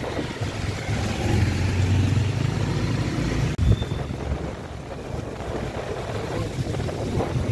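Street traffic on a rain-wet road: a low vehicle engine rumble with wind buffeting the microphone, and a brief dropout and knock about halfway through.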